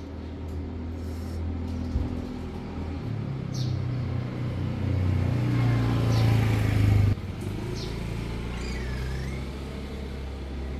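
A steady low engine hum, like a motor vehicle running, that grows louder and then drops off sharply about seven seconds in. A few faint short high chirps sound over it.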